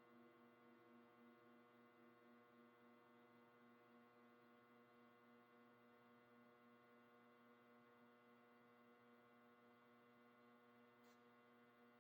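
Near silence: a very faint, steady ringing hum with a slow pulse in it, and a tiny tick near the end.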